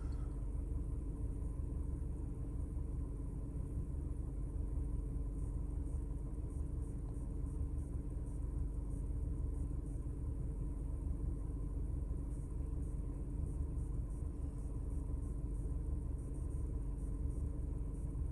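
Steady low rumble with a faint hum inside a car's cabin.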